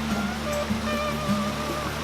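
Background music: a few held melody notes over steady low notes, with a hiss of noise beneath.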